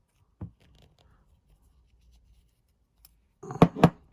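Small metal lock parts being handled while the antique mortice lock cylinder is taken apart: a light click, faint scratching, then a brief rattle with two sharp clacks near the end.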